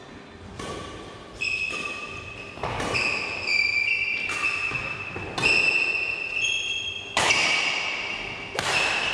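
Badminton rally: sharp racket strikes on the shuttlecock about once a second, most followed by a short ringing ping from the strings, in a large, echoing hall.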